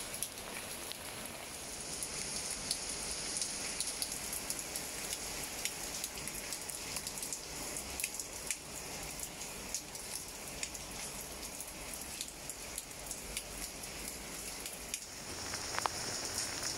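Steady rain falling on plant leaves, with many separate drops ticking through the hiss. It gets a little louder near the end.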